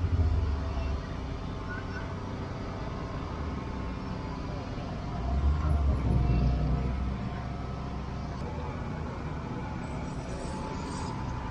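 Busy outdoor street-market ambience: a steady background din, with two low rumbles, a short one at the start and a longer one around six seconds in.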